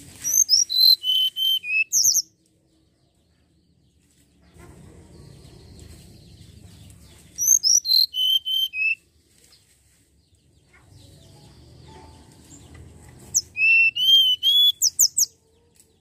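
Hill blue flycatcher (tledekan gunung) singing: three phrases of clear whistled notes, each a quick run stepping down in pitch. The phrases come at the start, about halfway, and near the end. A faint low rumble of background noise fills the gaps.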